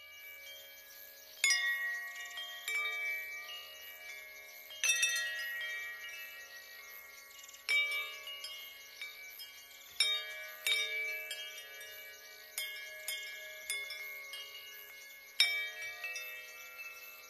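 Chimes ringing: clusters of bell-like metal tones struck together every second or few, each ringing on and slowly fading.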